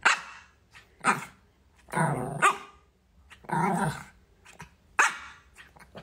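Pomeranian puppy barking: about five short barks roughly a second apart, one of them longer and growly.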